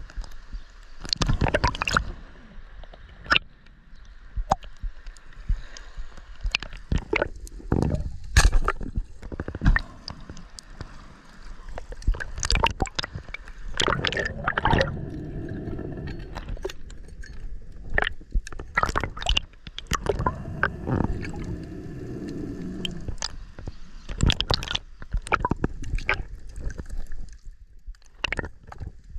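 Water gurgling and sloshing around a spearfisher's action camera, partly heard from underwater, with many irregular sharp clicks and knocks.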